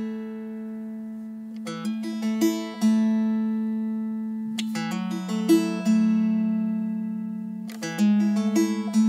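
Background music on acoustic guitar. Chords are strummed and picked in short clusters about every three seconds, and each is left to ring and fade in between.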